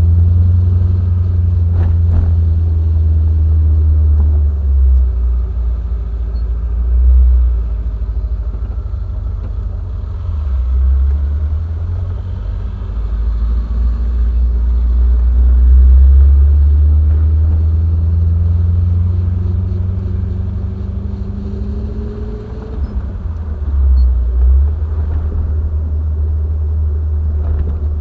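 Triumph TR7's 4.6-litre V8 engine running as the car is driven, a heavy low rumble whose pitch climbs in a couple of long, slow pulls and then falls back.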